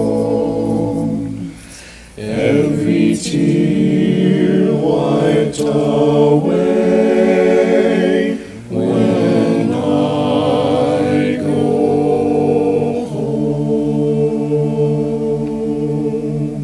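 A cappella hymn sung in multi-part harmony by several layered voices, men's and a girl's. The chords are held long, with two short breaks, about two seconds in and just past the middle.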